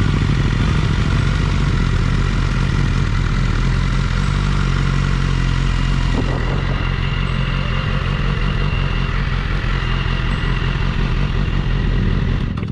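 Motorcycle engine running at steady revs under a constant hiss, changing abruptly near the end.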